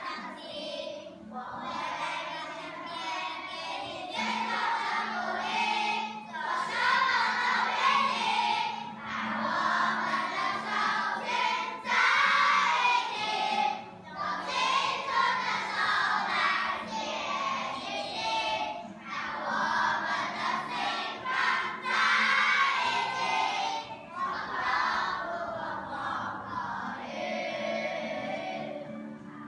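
A class of young schoolchildren singing a song together in unison, phrase after phrase with short pauses for breath.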